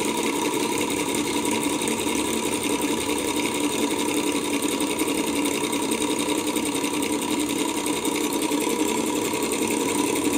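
Small two-piston Stirling engine with a propeller running with a steady, rapid clattering. The clatter is the slapping of loose-fitting internal parts, which the owner suspects of causing friction inside.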